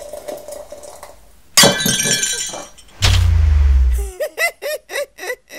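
Sound effects for an animated channel logo. About a second and a half in there is a sudden crash like shattering glass. A loud low hum follows at about three seconds and lasts a second, then a quick run of six short pitched blips, each rising and falling.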